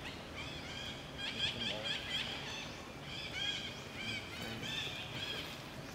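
Many short, high-pitched chirping animal calls, several overlapping and repeating throughout.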